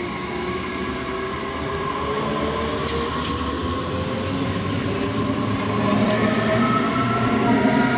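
DB class 422 electric multiple unit accelerating away from the platform: its traction motor whine climbs steadily in pitch over the rolling noise of the wheels, growing louder. There are a few short high ticks from the running gear partway through.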